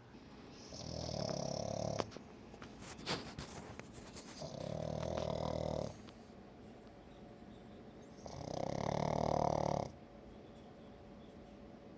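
Pug snoring in its sleep: three long snores about four seconds apart, each lasting about a second and a half, with the last the loudest. Such snoring is typical of the breed's short, flat-faced airway.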